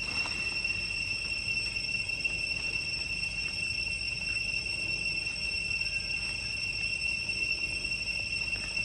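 Steady, unbroken high-pitched insect drone over a low rumble.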